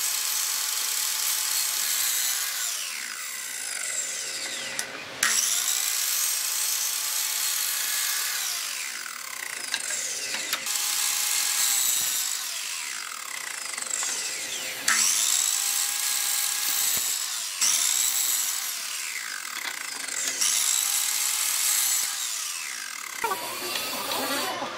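Electric sliding compound miter saw cutting short blocks of pallet wood, one cut after another. Each time the motor spins up, the blade cuts through, and the whine slides down as the blade winds down, about every three to five seconds, until the sawing stops near the end.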